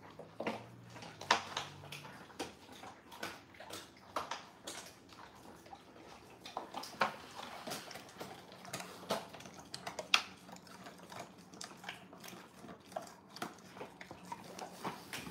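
Dogs chewing dehydrated pig-ear treats: irregular crunches and cracks, the sharpest about ten seconds in.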